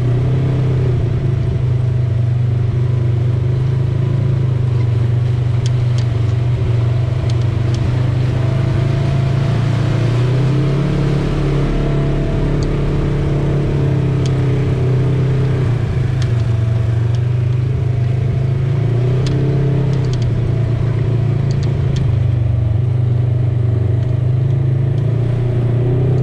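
Side-by-side UTV engine running steadily on a trail ride, its pitch rising and falling a few times as the throttle changes, with occasional sharp ticks.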